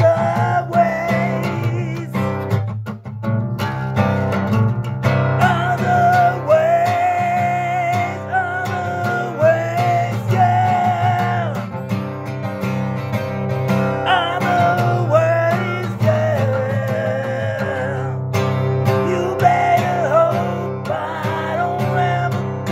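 A man singing with long held, wavering notes over plucked and strummed guitar accompaniment.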